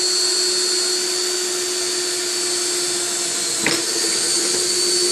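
Cordless drill running at a steady speed as it bores a hole through a solar panel's aluminum frame, its motor whining at one even pitch, with a brief click about three and a half seconds in.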